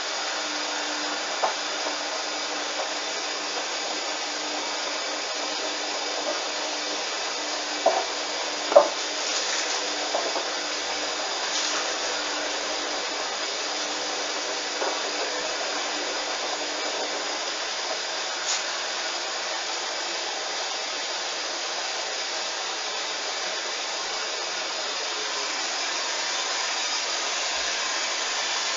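Hoover washing machine running with a steady, even whirring noise from its drum and motor, with a few light knocks about a third of the way in.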